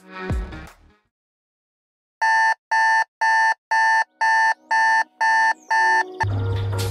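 Smartphone alarm going off: eight short, even beeps, about two a second, which then stop. A steady low hum starts near the end.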